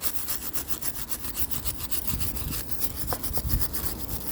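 Wire brush scrubbing an old iron railing in quick, even back-and-forth strokes, working out clogged material from the ironwork.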